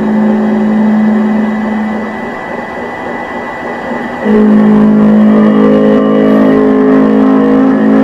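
Sustained droning chord of several steady tones that changes to a new, louder chord about four seconds in.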